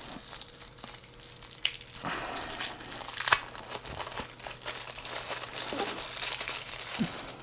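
Clear plastic packaging crinkling and rustling as hands unwrap a camera battery from its bag, with a few sharper crackles, the loudest about three seconds in.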